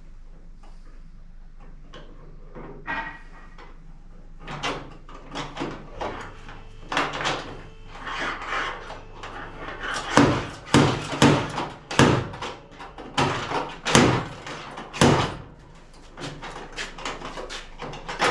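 Slide hammer of a spot-welding dent puller pulling dents from a car's steel wheel arch: a series of sharp metallic knocks, lighter and sparse at first, then loud and roughly one a second for several seconds in the middle, then lighter again.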